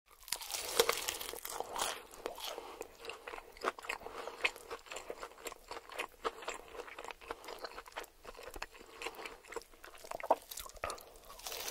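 Someone crunching and chewing crispy fried chicken close to the microphone, a continuous run of irregular crunchy bites.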